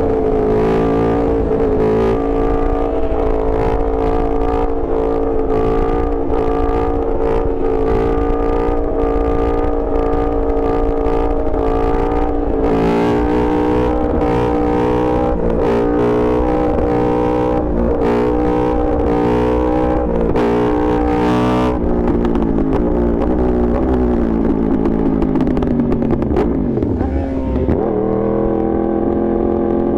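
Yamaha R1 inline-four sport bike engine running loud under way. Its note holds fairly level with short dips and pick-ups about once a second, then falls over several seconds as the bike slows, bottoms out near the end, and climbs again.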